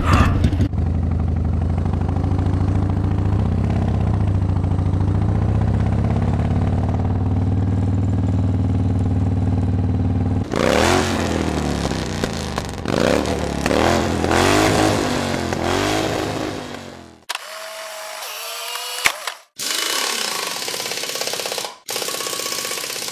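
Motorcycle engine idling steadily, then revved several times with the pitch rising and falling. Over the last few seconds the sound is choppy and cuts in and out.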